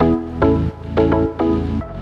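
Background music that starts abruptly: a run of pitched notes, about two or three a second, over a low bass.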